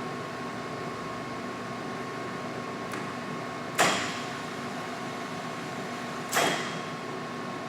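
Kingston HP5000 heavy-duty lathe running with a steady hum and a constant whine, broken twice, about two and a half seconds apart, by a sharp knock that rings briefly.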